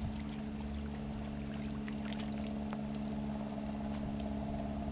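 Steady low drone of a motor running at an even speed, with faint scattered clicks over it.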